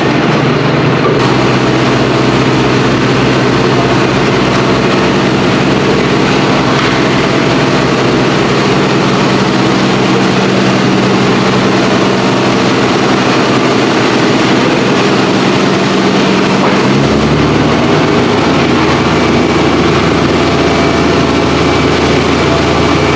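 Tractor engine running steadily, driving a rear-discharge spreader shredding a straw bale. About 17 seconds in, the engine note steps to a new steady pitch.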